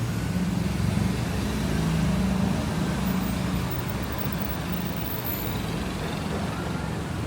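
A motor vehicle's engine running close by, a low steady hum that is strongest in the first few seconds and then eases, over general street noise.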